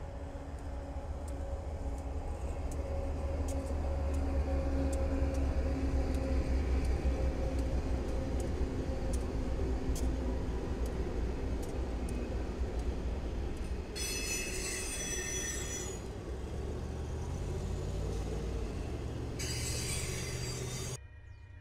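BNSF diesel freight locomotives rumbling past at close range, with a steady engine drone and regular wheel clicks over the rail. The train then eases off as the intermodal cars follow, and the wheels give two brief high-pitched squeals in the second half.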